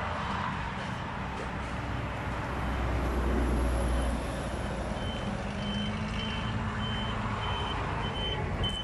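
1982 MAN 22.190 truck's diesel engine running while the truck manoeuvres, swelling louder around three seconds in. From about five seconds in, a reversing beeper sounds about twice a second as the truck backs up.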